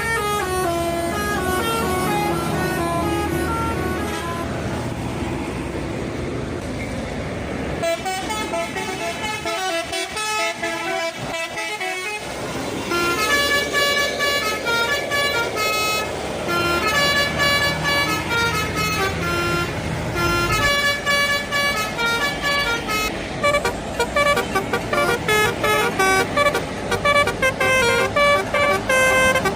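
Indonesian bus telolet horns: multi-tone horns playing quick melodic tunes, several notes sounding together and stepping up and down in pitch. From about two-thirds of the way in, the notes come as short, rapid blasts.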